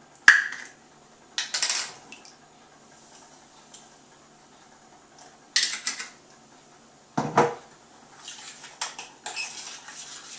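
Kitchen clatter of a milk pan and utensils: a sharp knock just after the start, then several short bursts of clinking and scraping, with lighter quick taps near the end.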